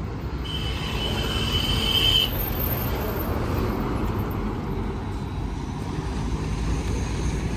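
Steady rumble of road traffic, with a high-pitched tone sounding for nearly two seconds near the start.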